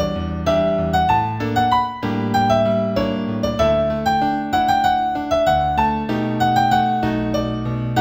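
Instrumental new-age piano music in D major: a melody of single notes over held low chords.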